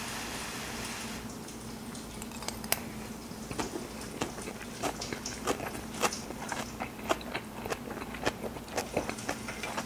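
Crunching of fresh spring-cabbage kimchi being bitten and chewed: a run of irregular crisp crunches starting about two seconds in.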